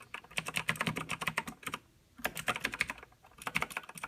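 Typing on a Razer BlackWidow mechanical gaming keyboard: rapid runs of clicking keystrokes, broken by a short pause about halfway through and another brief one near three seconds in.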